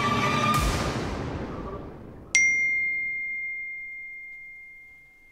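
Tense background music with a low boom about half a second in, fading out; then, about two seconds in, a single clear bell-like ding that rings on and slowly dies away.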